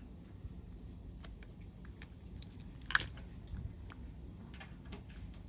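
Light clicks and taps from a Zippo lighter being handled, with one sharper metallic click about three seconds in.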